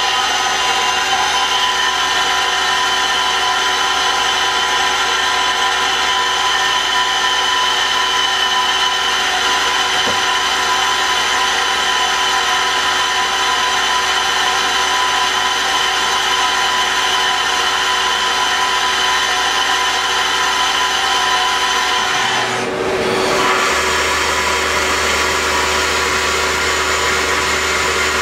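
Citizen L20VII CNC Swiss-type lathe running through its program dry, with no coolant, its spindle drives giving a steady whine of several tones. About 22 seconds in the sound briefly dips and then settles into a different pitch pattern, as the machine moves to another step or spindle speed.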